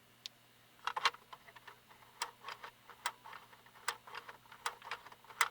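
Irregular small mechanical clicks, a few a second, starting about a second in, from the freshly lubricated cassette deck mechanism of a Radio Shack 12-696 radio as it is operated.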